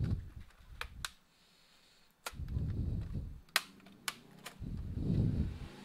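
Several sharp plastic clicks and snaps as the HP Pavilion g6 laptop keyboard's retaining tabs are pried loose with a plastic pry tool. Between them are low, muffled handling sounds of hands pressing and working on the chassis.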